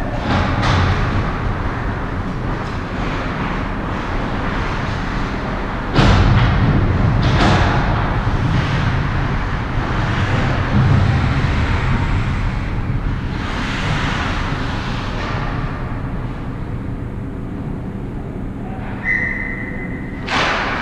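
Ice hockey play close to the goal: skate blades scraping the ice amid steady rink noise. A sharp knock about six seconds in is the loudest sound, likely a puck or stick striking. A short high tone sounds near the end.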